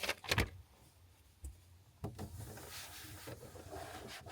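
A few sharp knocks and clatter from objects being handled, then a faint steady hiss.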